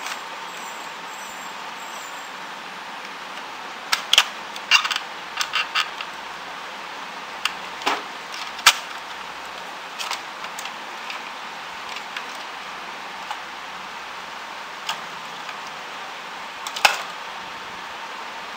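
Hands handling the plastic frame, carriage and timing belt of a stripped-down Epson inkjet printer, making scattered clicks and clacks over a steady hiss. There is a quick run of clicks about four to six seconds in, and the sharpest single clacks come near eight and a half and near seventeen seconds.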